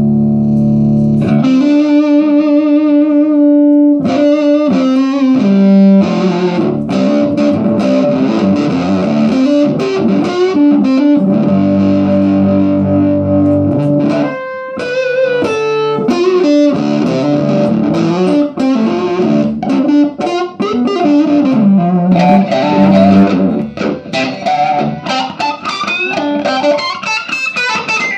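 Electric guitar played through a 6V6-powered 20-watt 1x12 tube combo amplifier with an overdriven, fuzzy tone. A held chord rings first, then a lead line with vibrato and bends follows, growing into faster runs later on.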